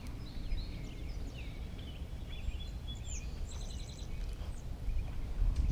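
Songbirds singing: a string of short chirps and whistled notes, with a quick trill of rapidly repeated notes a little past the middle, over a low rumble on the microphone.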